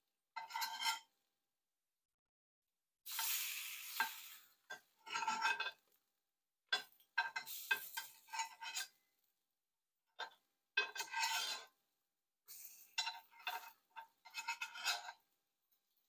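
Dishes and kitchen utensils being handled, clattering and scraping in a series of short separate bursts with silent gaps between them.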